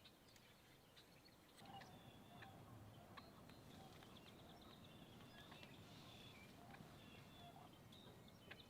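Near silence in spring woods: faint, scattered bird chirps, with a low rumble of wind noise coming in about two seconds in.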